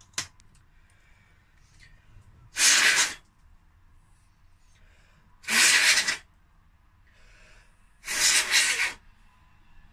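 Three short, hard puffs of breath blown into the opened Casio FX-100 calculator's housing, a few seconds apart, blowing out loose flakes of scraped-off battery corrosion in place of compressed air.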